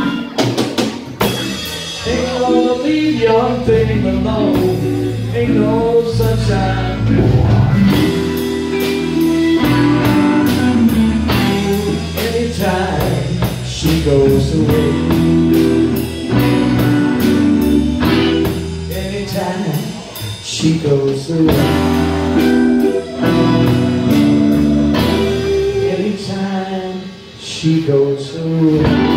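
Live band playing with guitars, bass guitar and a drum kit keeping a steady beat.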